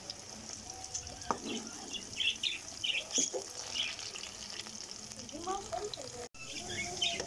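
Batter-coated potato fingers deep-frying in hot oil in a steel karahi: a steady sizzle with small crackles as the oil bubbles, while a metal ladle stirs them. One sharp knock comes a little over a second in, and the sound cuts out for a moment near the end.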